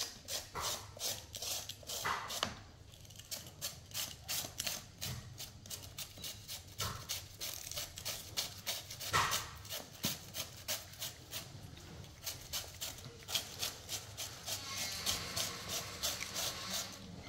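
Hand-held julienne shredder scraping strips off a raw vegetable, a steady run of short rasping strokes about two to three a second that come faster and denser near the end.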